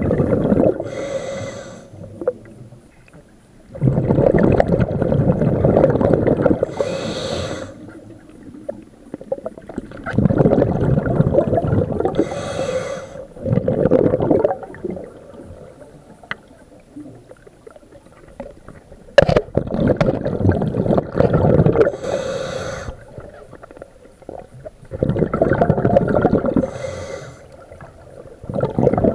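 Scuba diver breathing through a regulator underwater: long bubbling exhalations, each with a short hiss of the regulator on the inhalation, about every six seconds. One sharp click about two-thirds through.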